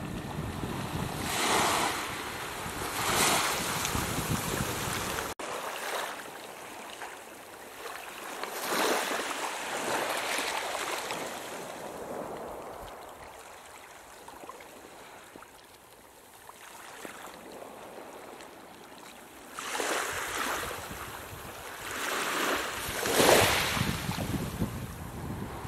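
Small waves washing onto a shallow sandy beach, swelling and fading every few seconds, with wind buffeting the on-camera microphone. The low wind rumble stops sharply about five seconds in.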